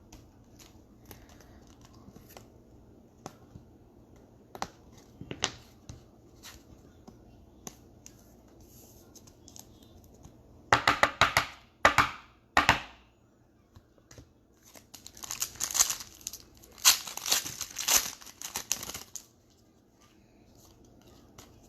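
Trading card pack wrappers being torn open and crinkled, with light card-handling clicks. The ripping comes in a short dense burst about halfway through and a longer one a few seconds later.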